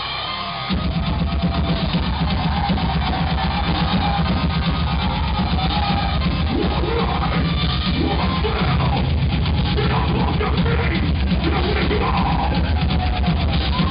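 Heavy metal music with a full band: a dense wall of heavy drums, bass and distorted guitar comes in suddenly under a second in and runs on loudly.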